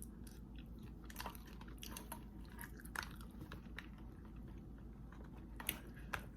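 Close-up chewing and biting of a piece of seafood-boil sausage, with irregular short clicks and smacks from the mouth.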